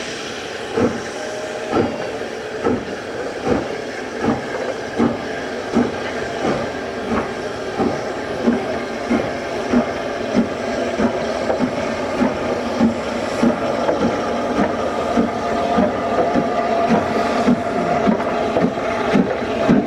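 Steam locomotive working, its exhaust beats chuffing steadily over a hiss of steam. The beats quicken from about one a second to about two a second as it picks up speed.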